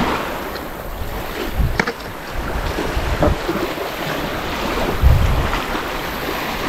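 Wind buffeting the microphone over small lake waves washing against the shore, with stronger low gusts about two seconds in and again about five seconds in.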